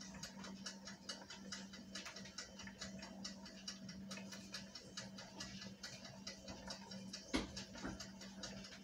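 Faint, rapid ticking of a toaster oven's mechanical timer, about five ticks a second, over a low steady hum. A single knock about seven seconds in.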